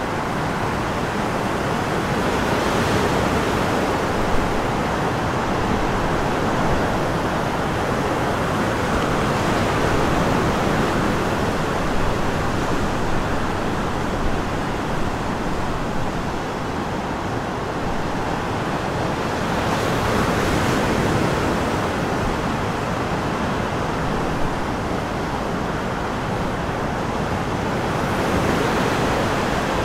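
Breaking sea waves and shore surf: a steady rush of white water that swells louder a few seconds in, about two-thirds of the way through, and near the end.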